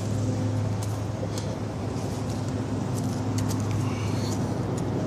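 Steady low rumble of road traffic from a nearby highway, with a few light clicks scattered through it.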